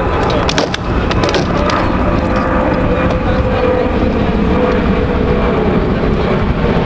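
A few sharp knocks of practice swords striking shields in armoured sparring, in the first second or so, over a loud steady rumbling noise.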